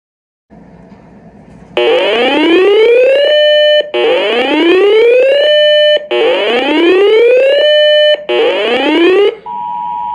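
Uniden Bearcat BC370CRS scanner sounding its alert: a loud whooping siren tone that climbs for about a second and a half, holds briefly, and repeats four times. Near the end it gives way to a steady two-tone beep.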